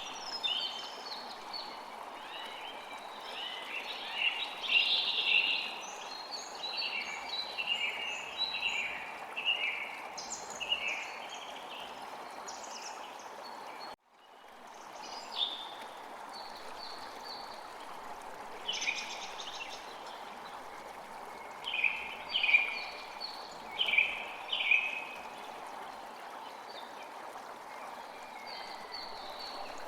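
Steady rushing wind ambience with small birds chirping in quick clusters of short calls, busiest in the first half and again past the middle. The whole track cuts out sharply about halfway through and fades back in over about a second.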